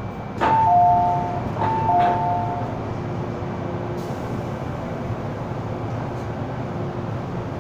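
Two-note chime, a higher note then a lower one, sounding twice over the train's public-address speakers, about a second apart. Behind it runs the steady carriage noise of an MTR M-Train.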